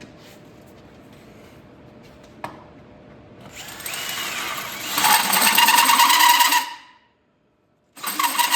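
Electric hand power tool running on steel in two runs: it spins up about three seconds in and runs loud for a few seconds, stops, then runs again near the end.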